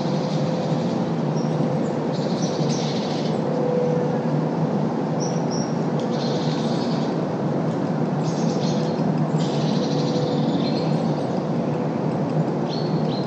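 Steady rumble of road traffic with the deepest bass filtered out, under scattered short high bird chirps and calls every second or two.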